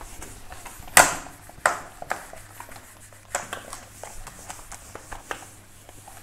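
Whiteboard duster wiping across a whiteboard in a series of short, scraping strokes, the loudest about a second in.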